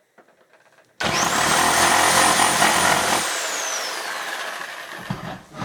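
Corded electric saw switched on about a second in, its motor running at full speed with a high whine for about two seconds. It is then switched off, and the whine falls steadily in pitch as the motor spins down.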